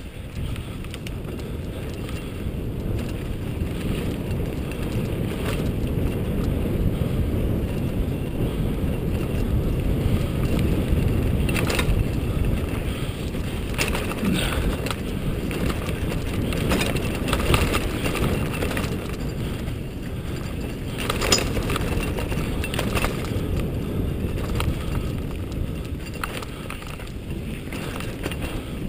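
Mountain bike riding fast along a dirt singletrack: wind rushing over the microphone and tyres rumbling on the dirt, with the bike rattling and clanking over bumps now and then.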